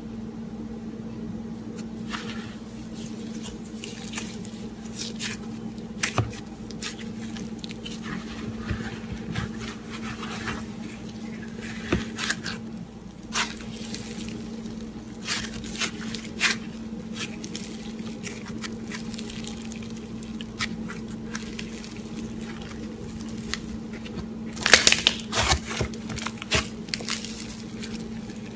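Floam, slime packed with tiny polystyrene foam beads, being squeezed and kneaded by hand: irregular crunchy crackles and wet squishes, with a denser, louder run of crackling near the end. A steady low hum sits underneath.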